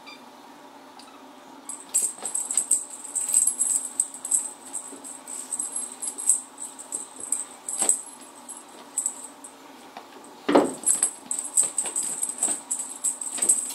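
A cat teaser toy jingling in irregular shaken bursts as it is waved for the kittens to bat at. There is one louder, lower sound about ten and a half seconds in.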